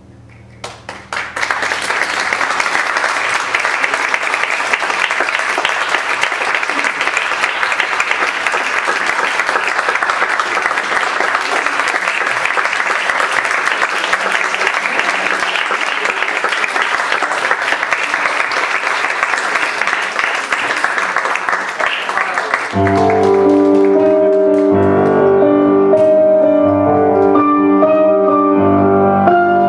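Audience applauding steadily for about twenty seconds. Near the end, music with held chords cuts in abruptly and louder.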